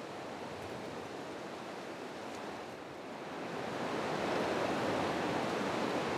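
Steady outdoor rushing ambience, like wind or distant surf, with no distinct events; it grows louder about four seconds in.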